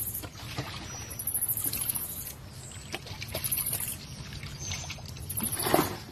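Water splashing and sloshing as a person ducks under and moves about in a muddy pond, with a louder splash near the end.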